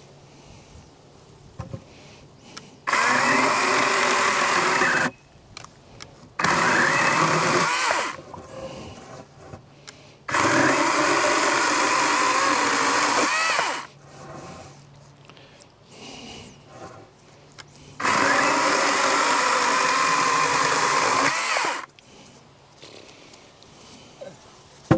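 Wild Badger 16-inch battery chainsaw running in four bursts while cutting wood, its electric motor and chain starting abruptly at full speed each time the trigger is pulled and stopping abruptly when it is released.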